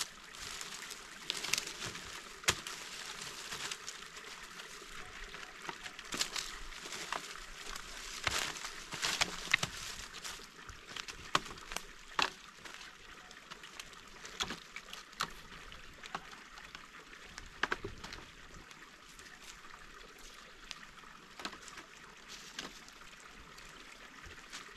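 Dry fallen leaves crunching underfoot and dead branches rustling and knocking together as they are gathered and dropped onto a firewood pile: an uneven run of crackles with sharp knocks now and then.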